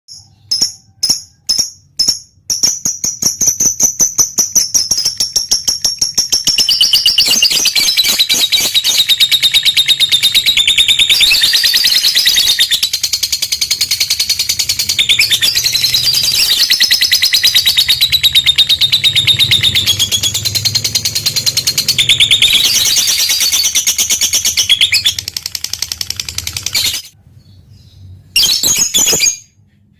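Lovebird ngekek: a few separate shrill chirps, then a long, very rapid chattering trill that runs for over twenty seconds before breaking off, followed by a few more chirps near the end. This long ngekek is the aroused call of a fighter lovebird, the kind used to provoke other lovebirds into calling.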